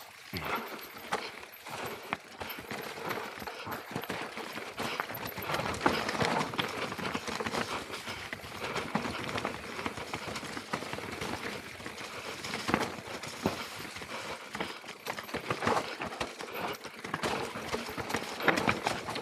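Mountain bike clattering down a rocky trail: tyres crunching over loose stones and dry leaves, with frequent sharp knocks and rattles as the bike bounces over rocks.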